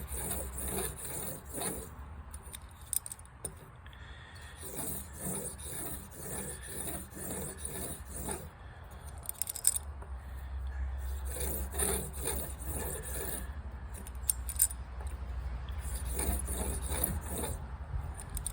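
Steel broadhead blade in a Blade Sled sharpening jig being drawn across 1000-grit abrasive in a run of short, light scraping strokes: the fine finishing passes of the sharpening.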